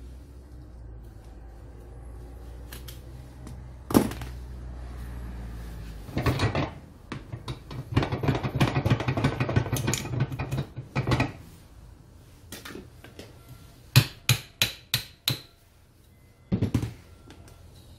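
Angle grinder parts and hand tools being handled and set down on a workbench during disassembly. A sharp clack comes about four seconds in, then several seconds of metal rattling and scraping, then a quick run of five clicks and a last knock near the end.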